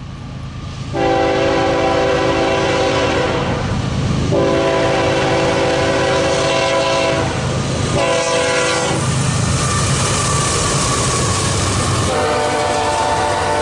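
Freight locomotive multi-chime air horn sounding two long blasts, a short one and a long one, the standard grade-crossing signal, over the low rumble of the approaching train.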